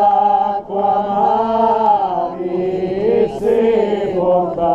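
A crowd of voices singing a slow devotional chant in unison, long held notes gliding up and down, with a brief pause for breath a little under a second in.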